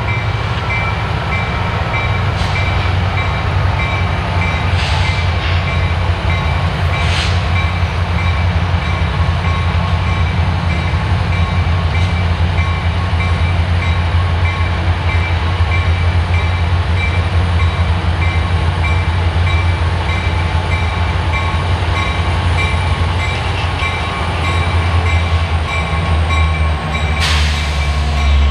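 A freight train's lashed-up diesel-electric locomotives pulling away from a stand, their engines running under load in a deep, steady drone. A bell rings repeatedly throughout, and a few short hisses break in, the loudest near the end.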